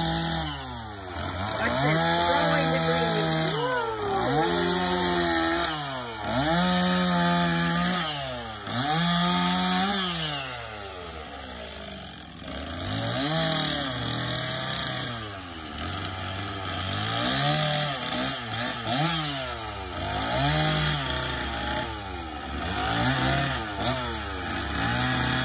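Gas two-stroke chainsaw revving up and falling back again and again, every second or two, as it cuts up branches, with a short lull around the middle.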